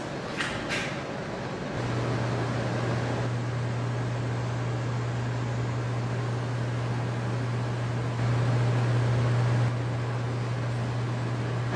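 A steady low mechanical hum over background noise. It starts about two seconds in and grows louder for a second or two near the end. Two brief sharp sounds come just after the start.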